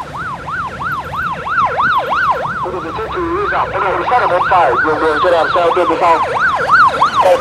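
Motorcade escort sirens on a fast yelp, each wail sweeping up and down about four times a second. A second siren overlaps for a few seconds in the middle before a single one carries on and stops near the end, over the low noise of the convoy's vehicles passing.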